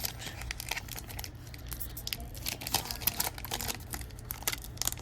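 Crinkling and tearing of a hockey card pack's foil wrapper as it is opened and handled, a run of irregular sharp crackles.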